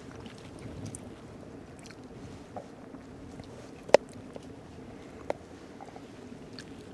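A person chewing a mouthful of steak, with a sharp click of cutlery on a plate about four seconds in and a smaller one about a second later, over a steady low rush of background noise.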